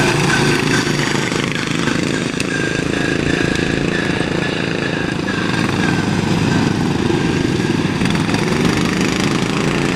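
Racing lawn tractors' small engines running hard and loud, steady throughout as several mowers lap a dirt track.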